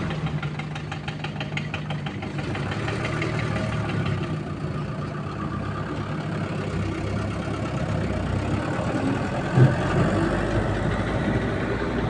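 Heavy diesel engine of earthmoving equipment idling steadily with a low clatter, plus one brief knock about nine and a half seconds in.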